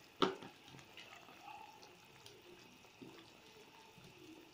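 Broth with sliced patola simmering in a pan: faint bubbling with small scattered liquid ticks, and one sharp knock about a quarter second in.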